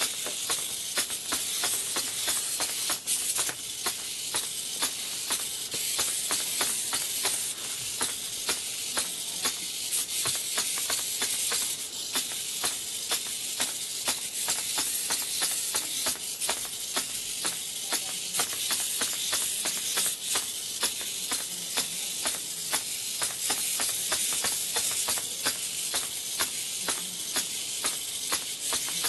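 Three-servo hexapod robot walking: its hobby servos run and its 3D-printed plastic legs tap and click in a steady rhythm, a few clicks a second, over a constant high hiss.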